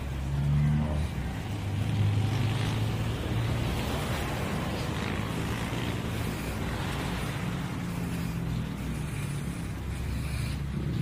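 A car engine running with a steady low hum, amid the background noise of street traffic.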